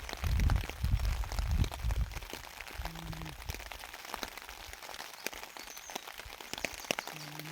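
Steady rain falling on a camp tarp, with many scattered sharp drop hits. Heavy low rumbling fills the first two seconds, and a short low hum sounds about three seconds in and again near the end.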